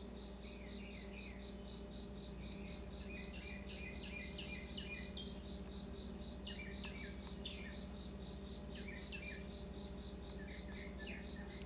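Insects calling outdoors: a steady high trill and a cricket-like chirp repeating about three times a second. Short bursts of bird chirping come several times over them, above a low steady hum.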